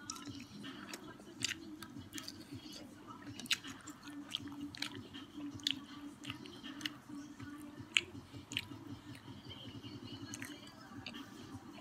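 Close-up chewing of prawns, with frequent wet mouth clicks and smacks at irregular intervals, over a low steady hum.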